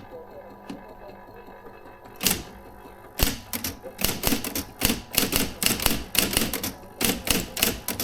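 Adler Junior Electric electric typewriter typing: after a quiet start, the typebars strike the platen about two seconds in. From about three seconds in they go in quick, uneven runs of several keystrokes a second.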